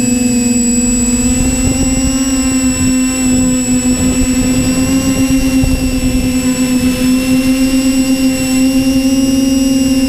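Quadcopter's brushless motors and propellers whining steadily at a near-constant pitch that rises slightly midway, heard from the onboard camera, with wind buffeting the microphone as a fluctuating low rumble.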